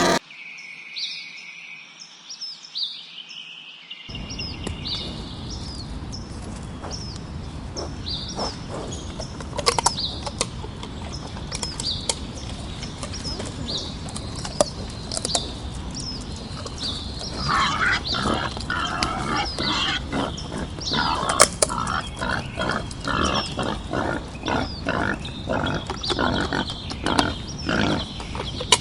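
Wild boar giving a long run of short, rhythmic grunts, about two or three a second, starting a little past the middle, over steady background noise. Small birds chirp repeatedly throughout.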